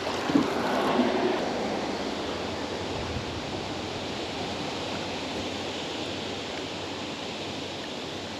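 Steady rushing of flowing water, an even hiss that eases a little in the first couple of seconds and then holds level.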